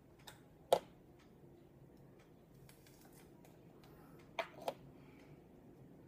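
Small hard objects clicking on a glass counter as a metal vape atomizer and a plastic e-juice bottle cap are handled and set down: one sharp click under a second in, then two quicker clicks near the end.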